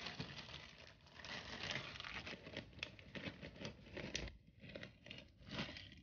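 Plastic zip-top bag with water inside crinkling faintly and irregularly as hands squeeze the air out of it.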